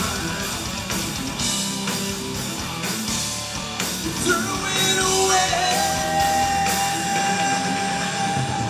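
Live heavy rock band playing: distorted electric guitars and drums under a shouted vocal, with a long held note through the second half.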